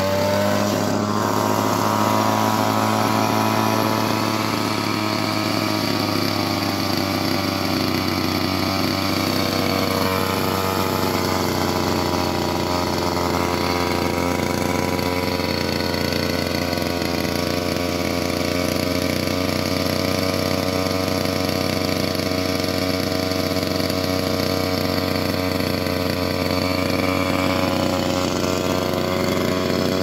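Small two-stroke trimmer-type engine running steadily while driving an air-conditioner fan motor as a generator. Its pitch climbs at the very start, sags briefly about nine seconds in, then holds steady.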